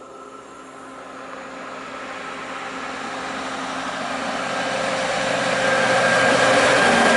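Diesel locomotive approaching at the head of a freight train of flat wagons, its engine running with a steady hum and whine that grow steadily louder as it nears.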